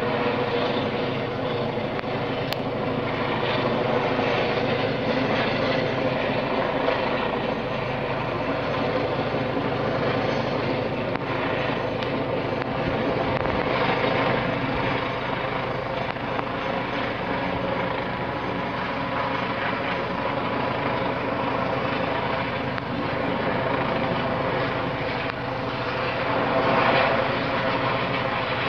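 Police helicopter flying overhead: a steady drone of rotor and engine that swells slightly near the end.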